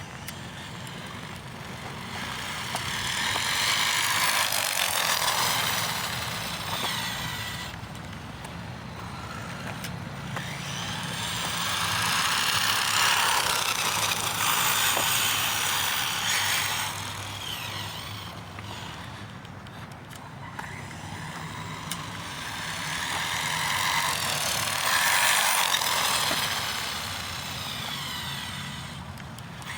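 Electric motor of an Arrma Typhon RC car on tape-wrapped drift wheels, whining up and down in pitch over the hiss of the wheels sliding on the ground. It swells and fades three times as the car drives and drifts.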